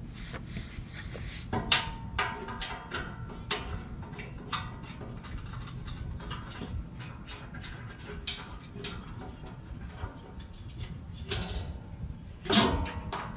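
Irregular clicks, taps and knocks of tools and parts being handled, with a louder clatter about a second before the end.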